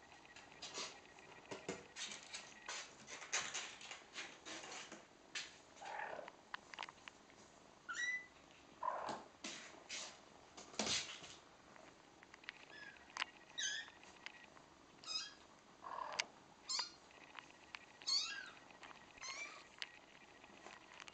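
Four-week-old kittens mewing: many short, high squeaky calls, some in quick runs of two or three, with a few lower, longer mews. Scattered light scuffs and taps run between the calls.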